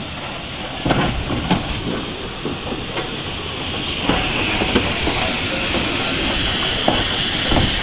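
Small saddle-tank steam locomotive moving slowly past at close range, with a few sharp knocks and clanks from its running gear and wheels on the track. A steam hiss grows louder from about halfway through as it draws level.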